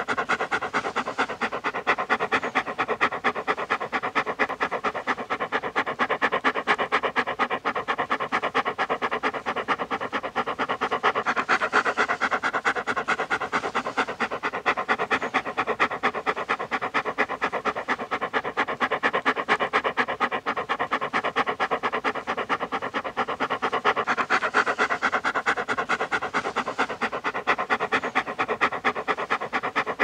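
A dog panting fast and steadily, a rapid run of short in-and-out breaths. The same stretch of panting repeats about every twelve seconds.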